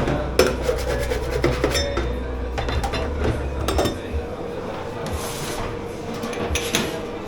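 Scrubbing and rubbing on dishes and pans, with scattered knocks and clatter, over a steady hum in a commercial kitchen dish pit.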